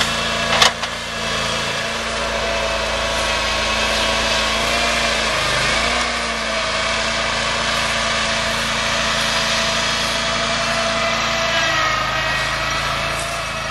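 Chainsaw running steadily while cutting through a dead oak log, with a sharp knock near the start and a brief dip in engine pitch about halfway through.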